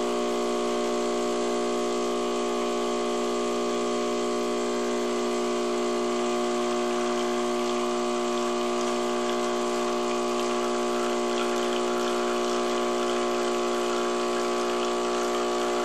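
Cappuccino machine's pump humming steadily as it makes coffee, with a watery hiss that grows stronger about two-thirds of the way through.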